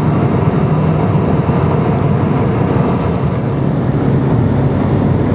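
Steady road and engine noise of a car at highway speed, heard from inside the cabin.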